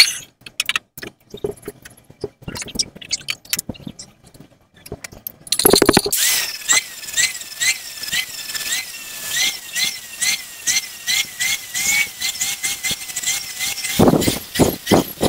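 Metal clinks and knocks as a stainless steel exhaust pipe is handled in a vise. About five seconds in, an angle grinder starts and grinds into the pipe, its high whine dipping in pitch again and again as the disc is pressed into the steel. Near the end the whine gives way to a quick run of rough, evenly spaced strokes.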